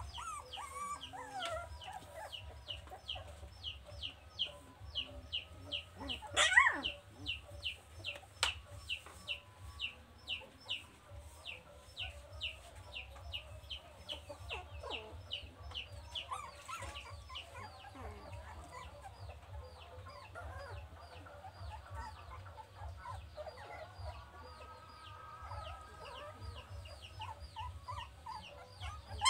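Chickens clucking around the yard, over a rapid, regular chirping of about four chirps a second that runs throughout. A single louder, rising call stands out about six and a half seconds in.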